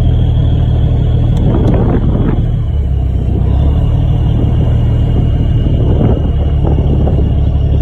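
Border guard patrol ship's engines running with a steady, loud low rumble.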